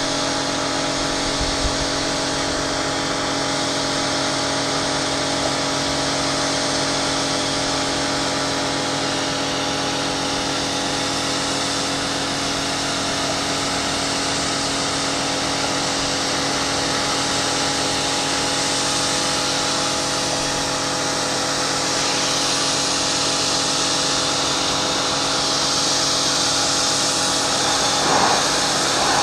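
Kärcher K5 Premium Home electric pressure washer running under load: a steady motor-and-pump hum under the hiss of the high-pressure water jet spraying the metal balustrade panels. The spray hiss gets brighter near the end.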